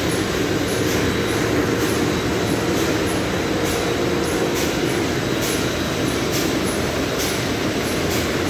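Dewatering screw press running steadily while pressing DAF sludge, a loud, even machine-room din with faint ticking about once a second.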